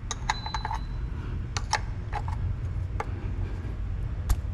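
Irregular light metallic clicks and taps of hand tools being handled and fitted, one briefly ringing near the start, over a steady low hum.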